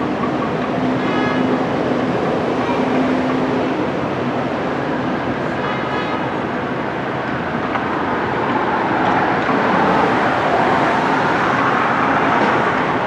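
Steady running noise of a moving vehicle, with two brief high pitched tones about a second in and about six seconds in, and a swell in level around ten seconds in.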